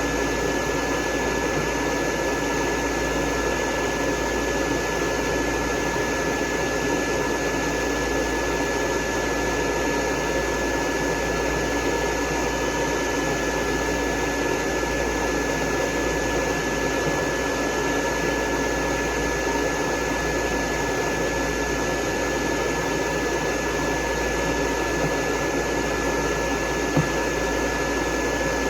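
Dryer blowing air on a dog's coat, running steadily with a thin high whine over the rush of air.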